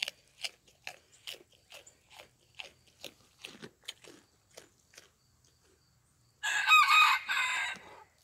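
A goat crunching carrot pieces, a steady run of crisp crunches about two to three a second. Near the end a rooster crows once, the loudest sound.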